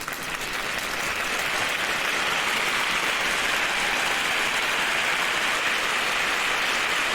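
Applause: many hands clapping in a dense, steady patter that swells up over the first second or two, then holds.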